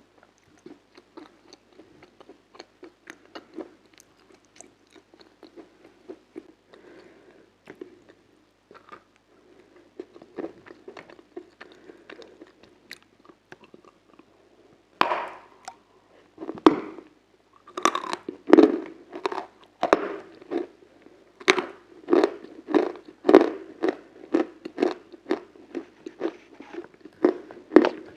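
A person chewing and biting crunchy frozen food close to the microphone. Soft, quiet chewing gives way about halfway through to louder crunching bites and chews, roughly two a second.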